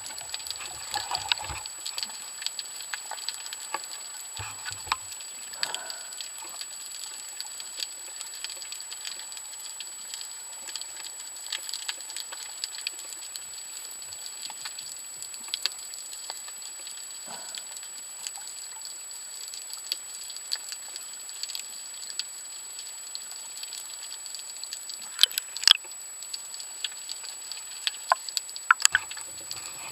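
Underwater ambience heard through a camera housing: a steady crackle of many small, rapid clicks, with a few louder clicks near the end, over a thin steady high tone.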